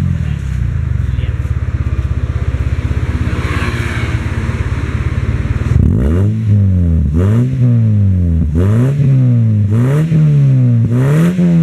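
2006 Toyota Yaris exhaust with an aftermarket centre muffler and rear muffler: the engine idles steadily, then about halfway through is revved in short blips, rising and falling in pitch about once a second.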